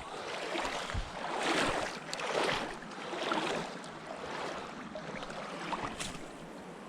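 Running water of a mountain trout stream: a steady rushing hiss that swells and eases about once a second, with a few faint clicks.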